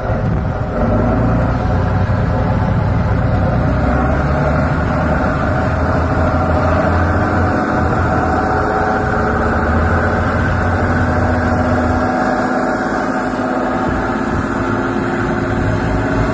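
Diesel engine of a heavy eight-wheeled off-road trial truck working under load as it crawls up a dirt slope: a steady, deep engine note.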